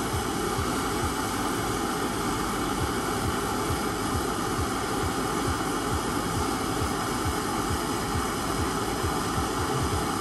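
MAP gas hand torch burning steadily with a hiss and a low flutter, its flame held on a screw to heat the thread-locking compound to about 400 °F so the screw breaks free without stripping.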